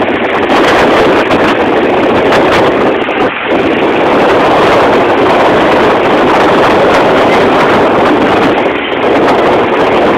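Motorboat under way across open water: a loud, steady rush of wind on the phone's microphone over the boat's engine and water noise.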